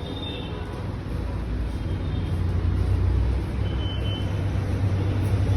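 Low, steady rumble of a motor-vehicle engine with road-traffic noise, growing louder from about a second in.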